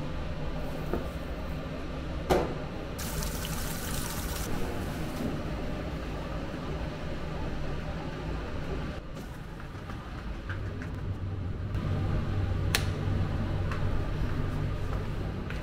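Sanyo coin-operated washing machine filling with water: a steady rush of water into the drum. There is a sharp click about two seconds in and another near the end, and a low hum joins about ten seconds in.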